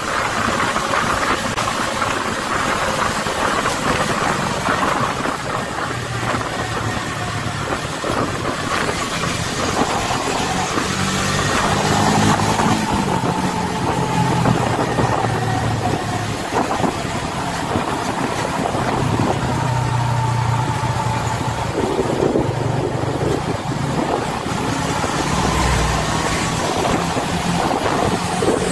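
Engine and road noise from a vehicle driving at speed on a highway. The engine note rises and falls as it speeds up and eases off, with a whine that slides up and down above it.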